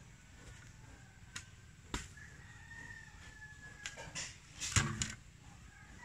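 A faint rooster crow, one long call falling slightly in pitch, over a few scattered knocks and scrapes of a shovel in damp soil, the loudest just before five seconds in.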